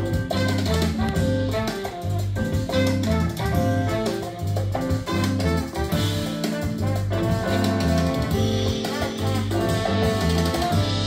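Recorded music with a strong bass line played through small Rogers LS3/5A monitor loudspeakers, picked up in the room.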